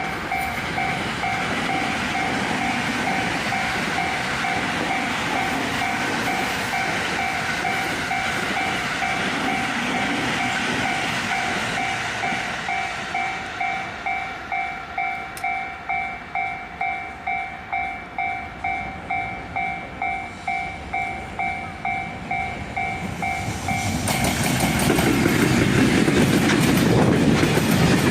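Japanese level-crossing warning bell ringing, a two-tone ding repeating about twice a second, over the rumble of passing trains. Near the end a much louder train passing drowns the bell out.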